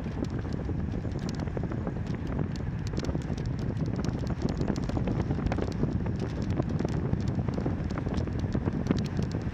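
Wind rushing over the microphone of a camera on a moving bicycle, with a continual patter of small irregular clicks and rattles from the bike.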